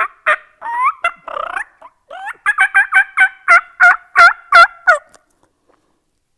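Diaphragm mouth call blown to imitate a wild turkey: a few short notes, then a run of about a dozen notes, roughly three a second and growing louder, that stops about five seconds in.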